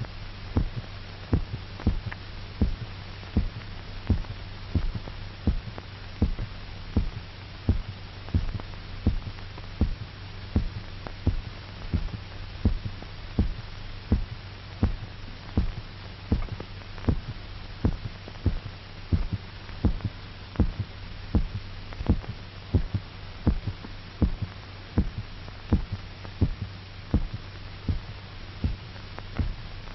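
A dog's heartbeat, played amplified on the soundtrack, beating steadily at about one and a half beats a second over a steady low hum, while the dog's blood is being drained out.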